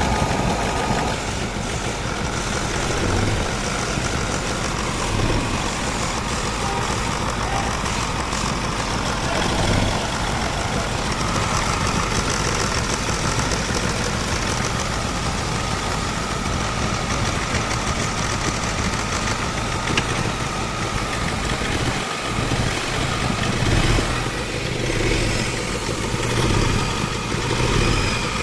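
Mahindra Scorpio's mHawk four-cylinder common-rail diesel engine running steadily at idle, with a few small swells in loudness near the end. The engine has a tapping knock that has been traced to cylinder number two.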